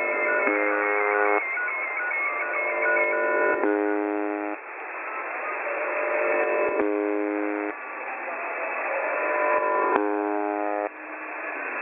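Shortwave radio audio of the UVB-76 'Buzzer' station heard through a receiver: a buzzing tone sounds for about a second roughly every three seconds, and noisy, crackling static fills the gaps between the buzzes.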